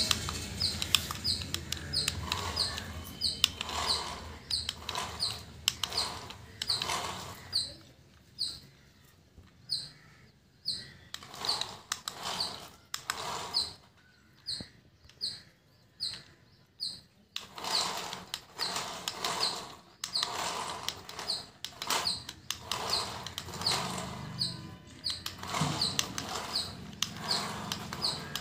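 Small birds chirping: short, falling chirps repeated about twice a second.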